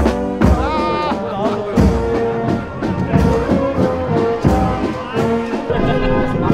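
Brass band music with drums, a carnival-style tune.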